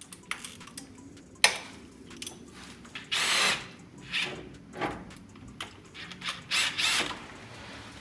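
Tool work on a car engine: a sharp metal click about a second and a half in, then several short bursts of a power tool, each under half a second, the longest about three seconds in.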